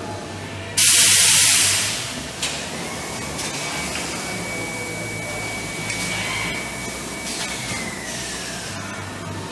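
Mattress packaging machine running with a steady mechanical hum. About a second in there is a loud hiss lasting about a second, then a steady high whine that falls in pitch and fades near the end.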